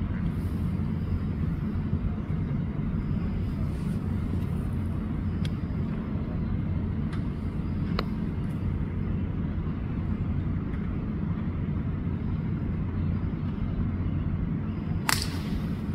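Golf driver striking a teed ball: one sharp crack near the end, over a steady low rumble. A few faint clicks come earlier.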